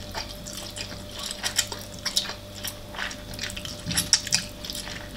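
Close-miked eating of Korean noodles: irregular wet smacking and slurping sounds mixed with light clicks of utensils against the dish.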